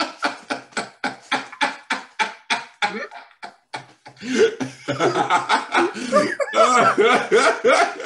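Two men laughing heartily. First come short, rhythmic bursts of about four a second; after a brief lull near four seconds, fuller, overlapping laughter follows.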